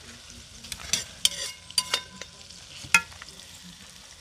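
Metal cookware clanking: several sharp metallic clinks and knocks of pot, lid and utensil, each ringing briefly, the loudest about three seconds in. A faint steady hiss of food cooking on the fire runs underneath.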